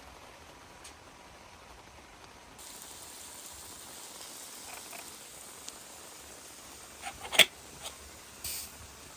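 Steady hiss of rain, which grows brighter a few seconds in, with a quick cluster of sharp clicks or knocks a little past seven seconds and a brief rustle or scrape just after.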